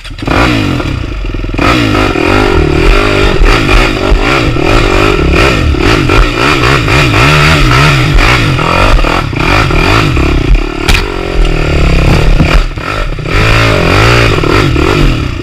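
Dirt bike engine revving up and down as the bike is ridden over rough, muddy trail, heard close from on board, with knocks and clatter from the bike over the ground. It comes in suddenly at the start.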